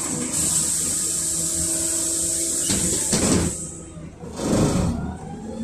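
Cabin sound of a LiAZ 5292.67 city bus with its YaMZ-53624 natural-gas engine running, under a steady hiss. Two short, louder rushes of noise come about three and four and a half seconds in, with a brief quieter dip between them.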